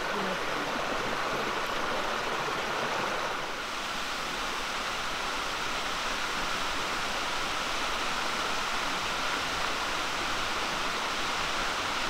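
Waterfall rushing: a steady, unbroken hiss of falling water.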